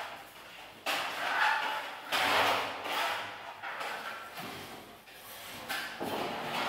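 Steel trowel scraping across a wall coated with burnt-cement effect, in several swishing strokes, the first about a second in.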